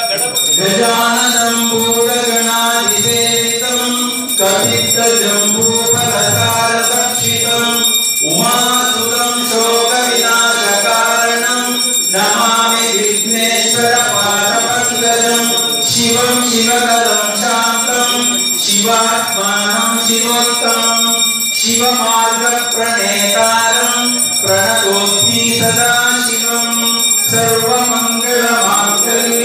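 A group of monks singing an arati hymn together in unison, in regular phrases of about four seconds, over a steady high ringing.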